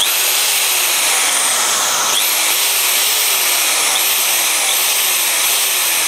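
Hukan HK-ID750 750 W corded impact drill's brushed motor running with no load. Its whine repeatedly jumps up in pitch and then slowly sinks, about once a second.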